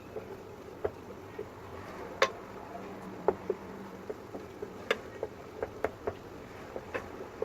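A spoon stirring chocolate melting in a bowl over a bain-marie, clinking and tapping irregularly against the bowl.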